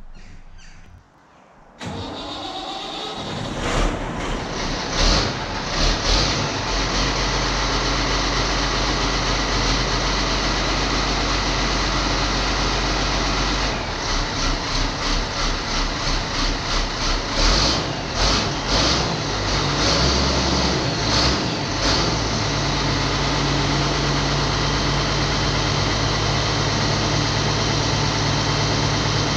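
Ford TW25 tractor's six-cylinder turbo diesel cranking and catching about two seconds in on a cold start after more than a month standing. It runs with uneven surges, pulses for a few seconds in the middle, and settles to a steady idle near the end.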